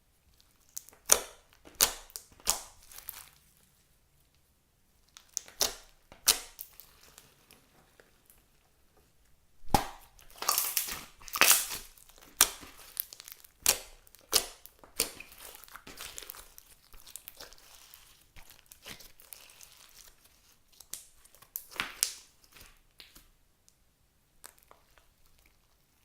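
Clear slime mixed with floam beads being squeezed and stretched by hand, giving bursts of sharp crackles and pops with short quiet pauses between. The crackling is busiest in the middle.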